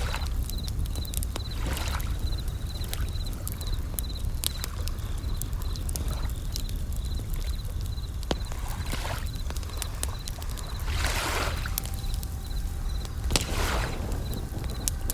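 Layered night nature sounds: a campfire crackling with irregular sharp pops, waves washing in and out every few seconds, and bell crickets (suzumushi) chirping in a steady run of high-pitched chirps.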